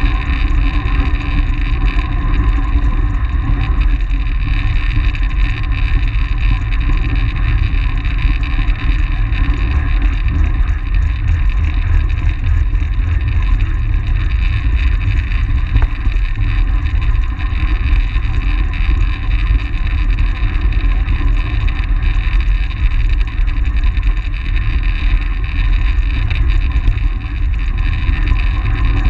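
Steady wind rush and low rumble on a track-bicycle-mounted action camera at race speed, with the hum of tyres rolling on the concrete velodrome surface.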